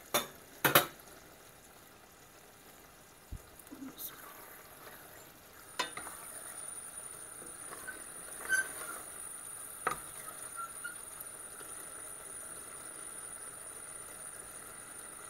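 A stainless-steel saucepan lid is set down with two quick clanks, then a spatula stirs soft-cooked turai (courgette) slices in the pot, scraping and clinking against the steel. About six seconds in, a steady sizzle of the vegetables cooking in their own juices sets in and carries on.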